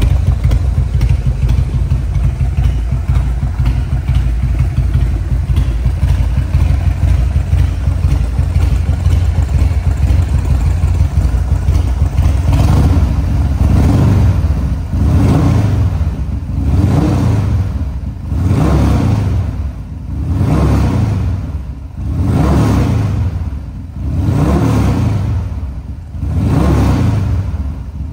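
Buell Cyclone's 1200cc Harley-Davidson V-twin, fitted with a Buell race exhaust and a Mikuni HSR42 flatslide carburettor, idling steadily. About halfway through it is revved in short throttle blips, roughly one every two seconds, each rising and dropping back to idle.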